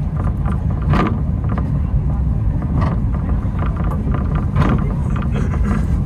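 Takao Tozan cable car (funicular) running downhill: a steady low rumble, with a short higher-pitched noise coming through three times at about two-second intervals.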